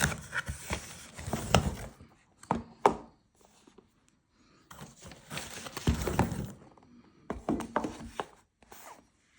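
Packaging handled while a phone is unboxed: rustling and crinkling with sharp knocks and taps, in several bursts with short pauses between them.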